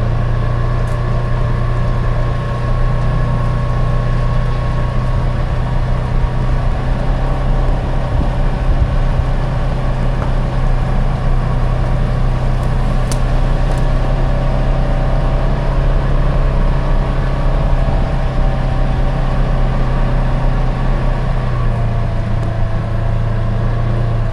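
Polaris Ranger XP 1000 side-by-side's engine running steadily as the vehicle drives along.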